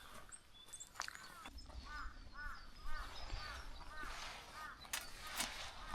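Crow cawing a rapid series of about eight faint calls, around three a second, with a few sharp clicks.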